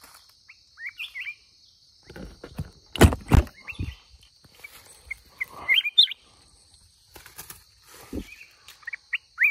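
Short, rising chirping calls of black-crested bulbuls, a few at a time, over a steady high hiss. A few heavy thumps and rustles of dry leaf litter, the loudest about three seconds in, come as the trapper reaches a net trap with a bulbul caught in it.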